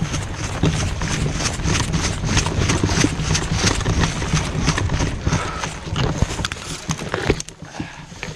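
Hurried footsteps and the rattle of carried gear close to a body-worn microphone, easing off about seven and a half seconds in.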